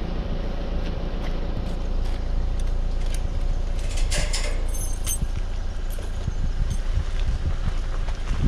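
Steady low rumble of a running vehicle, with scattered light clicks and a short hiss about four seconds in.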